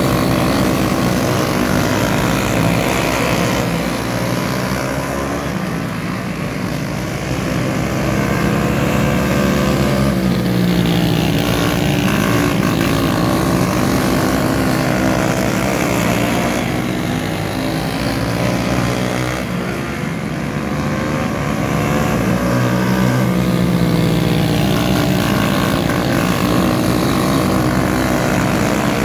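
Engines of small winged dirt-track race cars running at racing speed, the pitch rising and falling as they accelerate and lift. The sound swells and fades every several seconds as the cars pass and go round the far side.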